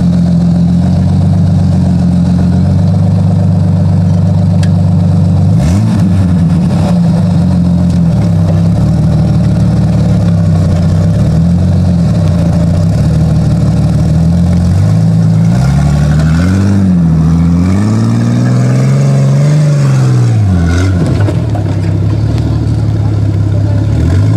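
Jeep Cherokee's engine running under load as it crawls up a muddy slope, mostly at steady revs, with a short rev-up and drop about six seconds in and several swells of revs up and down in the second half. A few knocks sound over it.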